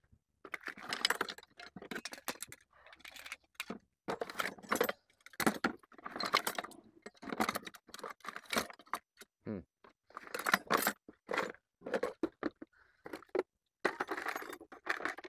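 Metal hand tools clinking and rattling in a toolbox in irregular bursts, as someone rummages through it.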